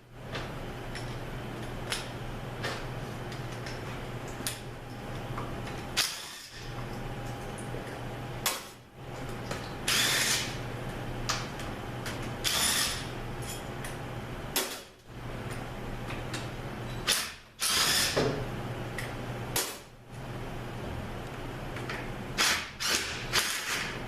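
Ratchet wrench with a 9/16 socket on an extension undoing the extension-housing bolts of a 904 automatic transmission: repeated bursts of ratcheting clicks and rattling, separated by short pauses, over a steady low hum.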